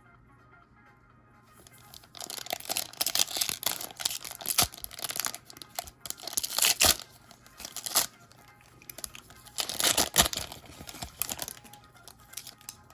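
Foil trading-card booster pack wrapper being crinkled and torn open, in irregular bursts of crinkling from about two seconds in until near the end, over quiet background music.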